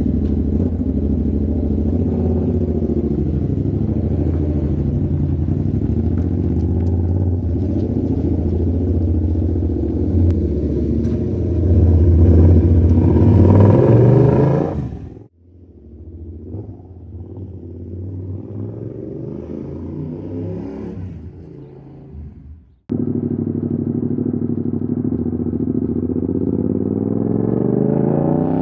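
Yamaha YZF-R7's parallel-twin engine running through an aftermarket SC Project-style exhaust with the dB killer removed, with the revs rising near the middle and again near the end. About halfway through the sound drops away suddenly to a quieter, more distant engine note, then cuts back in loud several seconds later.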